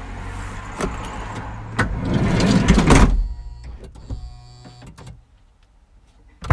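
Knocks and rustling noise in a vehicle's cargo area, building to a peak about three seconds in, then a brief electric whir. A sharp click near the end as the rear liftgate latch releases.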